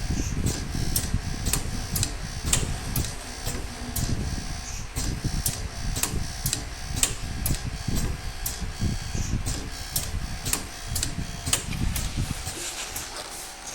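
Pneumatic connector socket strength testing machine running its automatic test loop: regular clicking about twice a second over a low rumble, with the rumble dropping away near the end.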